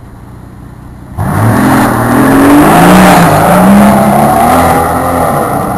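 Mercedes-AMG SL65 Black Series twin-turbo V12, fitted with a QuickSilver SuperSports sports exhaust, idling steadily. About a second in it comes on hard as the car accelerates away, the exhaust note loud and climbing in pitch, then fading as the car moves off.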